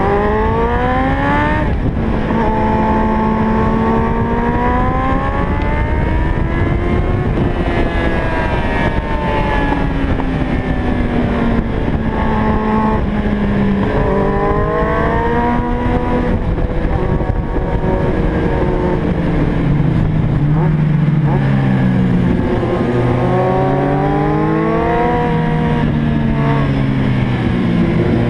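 Kawasaki Z750's inline-four engine through an HP Corse Hydroform aftermarket exhaust, heard from on board while riding: it revs up repeatedly, pitch climbing and then dropping sharply at each gear change, with a lower, deeper pull near the end.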